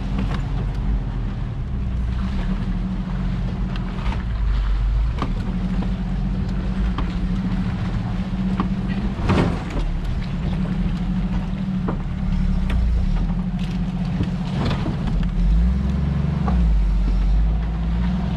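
Toyota FJ40 Land Cruiser's engine running steadily at low speed as it crawls over rough ground, picking up a little near the end, with several sharp knocks and rattles from the body jolting over bumps.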